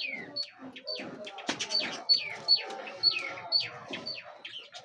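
Small cage birds chirping in an aviary: a steady run of sharp calls, each sliding down in pitch, two or three a second.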